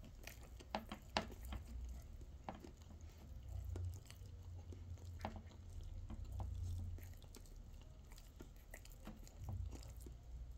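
A person eating a toasted bread sandwich with egg and avocado: scattered soft clicks and chewing sounds close to the microphone, with a steady low hum underneath.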